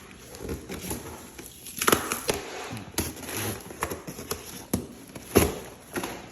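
Packaging rustling and irregular knocks as boxed aftermarket wheels are unpacked and handled, with the sharpest knocks about two seconds in and again near the end.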